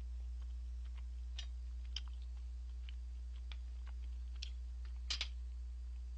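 Sparse light clicks and taps over a steady low hum, with a sharper double click about five seconds in.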